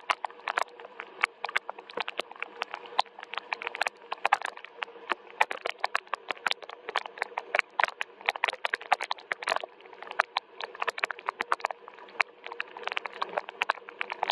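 Rain falling, heard as many close, irregular sharp drop ticks on a hard surface over a soft hiss, with a faint steady hum underneath.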